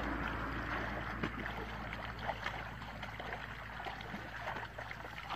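Shallow muddy water trickling and sloshing, with many small, quick splashes from hands groping through it for fish.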